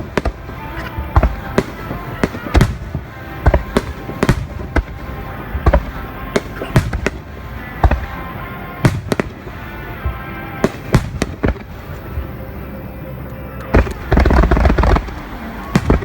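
Fireworks shells bursting one after another in sharp bangs, with a dense, loud barrage of bursts near the end. Music plays steadily underneath.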